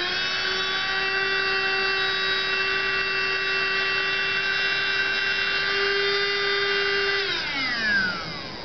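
Small electric motor of an induction chamber evacuator running with a steady high whine, drawing gas out of the chamber. About seven seconds in it is switched off and spins down with a falling whine.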